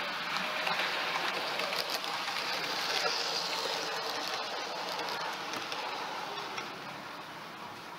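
Hornby class 110 three-car DMU model running on OO gauge track: a whirring motor and wheels rattling along the rails, with light clicks. It grows louder about three seconds in, then fades as the train moves away.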